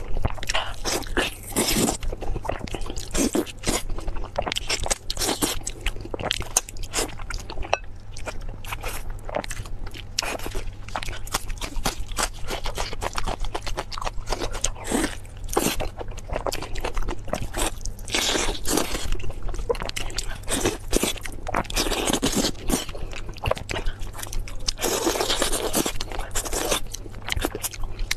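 Close-miked eating of pork tail: biting, chewing and pulling the sticky meat and skin off the bone, a dense run of short wet clicks, with louder stretches of chewing around the middle and near the end.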